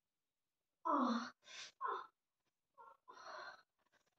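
A woman's short pained cries and sighs as her long hair is pulled, four or so in quick succession, with a sharp breathy gasp among them.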